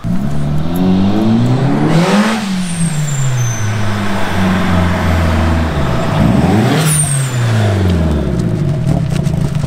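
Nissan S13 hatchback drift car being driven down the street, its engine revving up and dropping back twice as it goes past.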